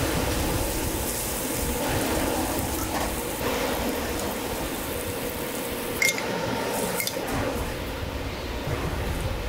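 Egg-and-cabbage toast patties sizzling on a flat-top griddle, a steady hiss over a faint background hum. A sharp metal clink sounds about six seconds in, and a lighter one a second later.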